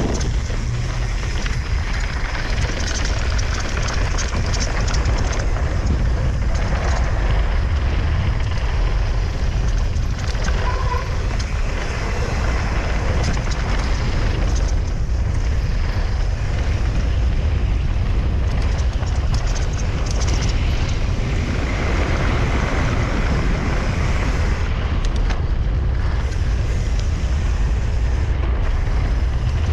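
Wind rushing over an action camera's microphone as a mountain bike descends at speed, with a steady low rumble, over the sound of its tyres running on a dry, loose dirt trail. Short clicks and knocks from the bike come through the wind.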